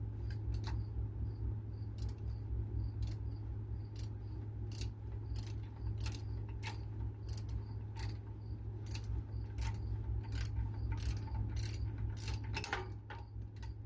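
Hand socket ratchet clicking in repeated short strokes as a bolt is worked loose, over a steady low hum, with one sharper clack near the end.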